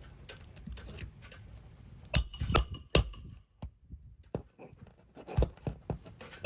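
Three sharp metallic strikes about half a second apart, a little over two seconds in, then a few lighter knocks and one more strike at the end: steel roofing tools working roofing nails in an asphalt shingle, under light scraping and handling noise.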